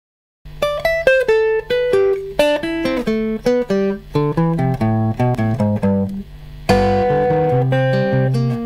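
D'Angelico NYL-2 hollow-body archtop guitar played with a pick: a run of single notes and double-stops begins about half a second in, and a loud chord strummed near seven seconds rings on under more picked notes.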